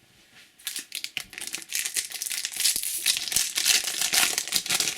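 Trading-card packet wrapper crinkling and rustling as it is handled and torn open, a dense crackle that starts about half a second in.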